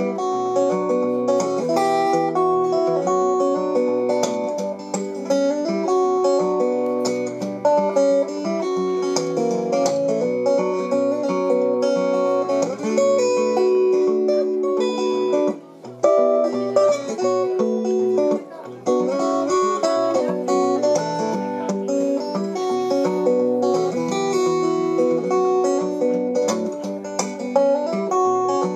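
Acoustic guitar played solo as the song's instrumental introduction: plucked notes in a steady rhythm, with a short break about halfway through.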